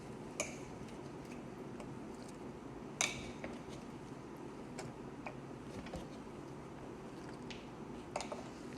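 A few scattered light clicks and taps of kitchen utensils and containers, the sharpest about three seconds in, over a steady low hum.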